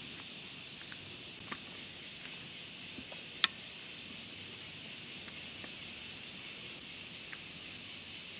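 Steady high-pitched hiss of a cicada chorus, with a few faint clicks and one sharp click about three and a half seconds in.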